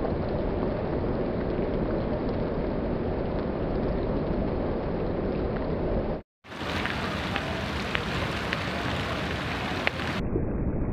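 Heavy rain pouring and splashing on hard ground: a steady rushing hiss. About six seconds in it drops out for a moment and comes back brighter, with single drop splats audible, then turns duller near the end.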